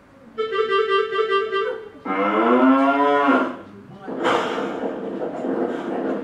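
A cartoon bull's long, loud moo, its pitch bending down and back up, from an animation soundtrack played over room speakers. A short held musical note comes just before it, and a broad rough noise follows from about four seconds in.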